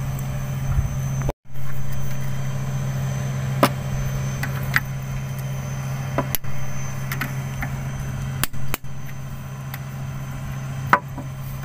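A steady engine drone, with a few sharp metal clicks and taps from a socket wrench tightening the gearbox cover bolts. The sound cuts out briefly about a second in.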